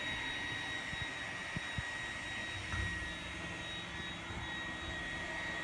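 iRobot Roomba 980 robot vacuum running: a steady motor whir with a thin high whine, and a couple of faint knocks about a second and a half in.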